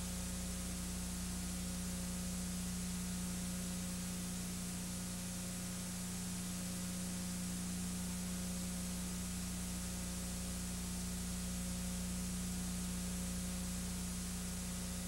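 Steady electrical hum under a constant hiss, with nothing else: the noise floor of a transfer of a silent home movie.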